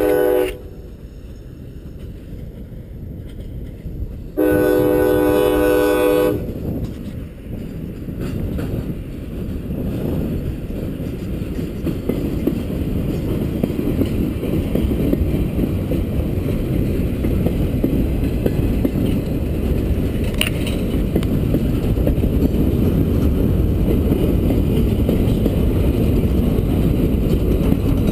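A CSX freight train's chime horn sounds a short blast, then a longer blast about four seconds in. Then the train's cars roll past, a steady rumble of wheels on rail that grows gradually louder.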